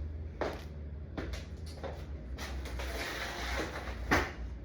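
Knocks and scraping from a drill with a long extension bit being set against wooden joists, with a short stretch of rasping partway through, over a steady low hum.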